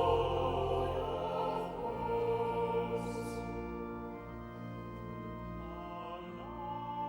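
Classical-style music of long held chords, gradually getting quieter.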